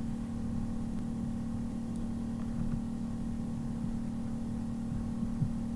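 Steady low background hum with one constant droning tone and no distinct events.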